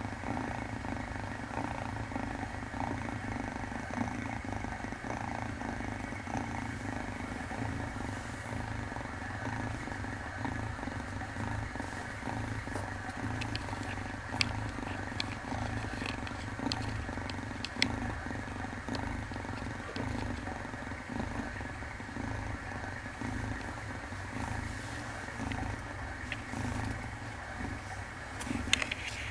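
Kitten purring steadily while being stroked, with a few light clicks about halfway through.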